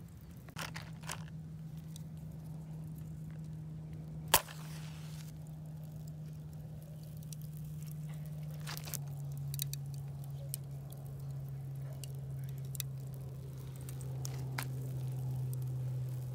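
A wooden match struck about four seconds in: one sharp, loud scrape-click followed by about a second of hiss as it flares. It is held to dryer-sheet tinder under lump charcoal in a small steel grill, with a few light clicks after. A steady low hum runs underneath and drops slightly in pitch about nine seconds in.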